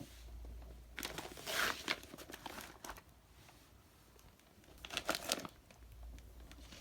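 Packaging crinkling as it is handled, in two spells of rustling about a second and a half to two seconds long, the second one shorter.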